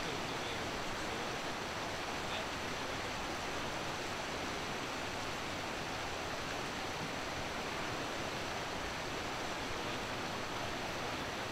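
Steady rush of a fast river running over and around boulders.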